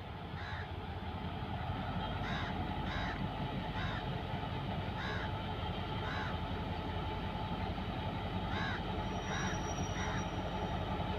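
Crows cawing repeatedly in short calls over a steady low rumble from a diesel locomotive slowly approaching on the line.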